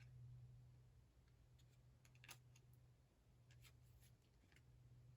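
Near silence: room tone with a steady low hum and a few faint clicks of small puzzle-box pieces being handled.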